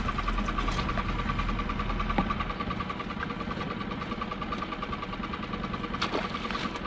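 A small fishing boat's engine idling steadily, with a fast, even pulsing beat. There is a short knock about two seconds in, and a splash about six seconds in as something is thrown overboard.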